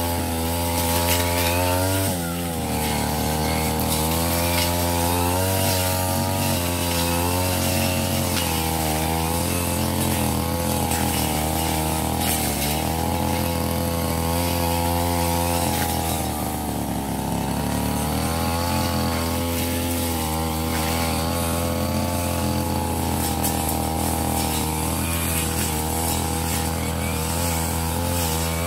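Ogawa 33 cc brush cutter with a metal blade running at high revs throughout. The engine note dips in pitch several times and picks up again as the blade works through thick, overgrown lemongrass and grass.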